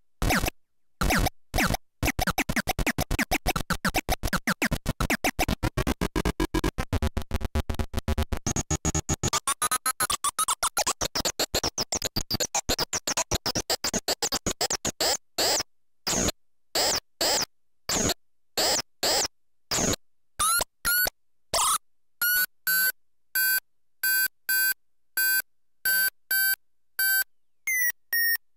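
Hand-built analog noise machine played straight into the recording, its output chopped into on-off bursts of harsh noise: a rapid stutter that gradually slows to separate blasts about a second apart, turning into short pitched beeps near the end.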